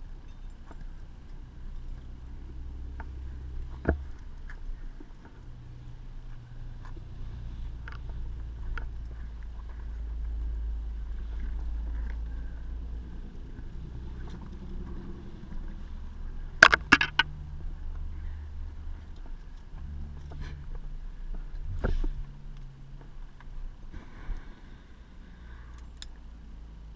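Footsteps scuffing over rock with scattered clicks and clinks of metal climbing gear such as carabiners, over a steady low rumble. The loudest sound is a sharp clatter of several quick knocks about two-thirds of the way in, and there is another knock a few seconds later.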